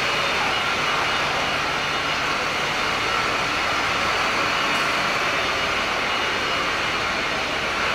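Steady machinery noise of batch tyre pyrolysis reactors at work: an even rush with faint steady hums in it.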